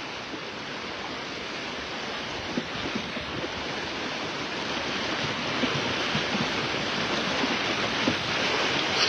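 Flash-flood water rushing down a paved street in a steady, dense wash that grows gradually louder. Small knocks through it are rocks tumbling along the road under the current.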